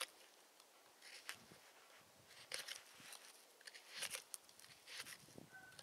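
A 9KhF-steel knife blade shaving a frozen wooden stick: faint, short scraping cuts, roughly one a second.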